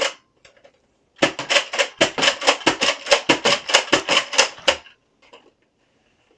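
Nerf Elite Retaliator spring-powered dart blaster being primed and fired over and over: a fast, steady run of sharp plastic clacks, about five a second, lasting some three and a half seconds, then it stops.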